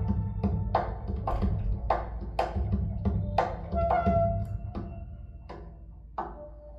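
Recorded music played back through Monitor Audio Gold loudspeakers driven by a Luxman Class A amplifier: sharp hand-drum strikes, about two to three a second, over a steady low drone, growing softer near the end.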